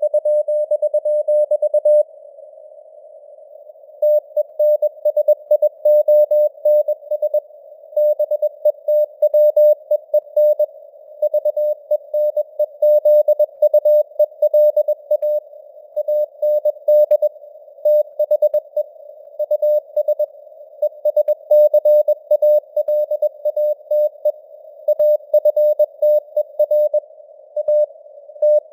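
Morse code (CW) sent at 21 words per minute: a steady mid-pitched tone keyed on and off in dots and dashes, over simulated radio noise hiss. The keying pauses for about two seconds near the start, then runs on without a break.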